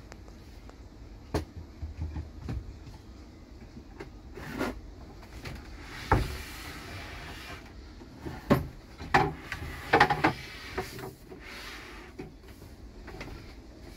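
Cabinet drawers being slid open and a drawer pulled out: a run of scattered knocks and clunks, with a sliding rub about six seconds in and a cluster of louder knocks near the end.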